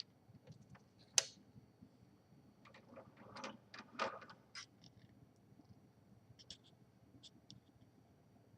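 Faint handling noise on a manual portable typewriter: a sharp click about a second in, then a cluster of light knocks and taps a couple of seconds later, and a few faint ticks near the end.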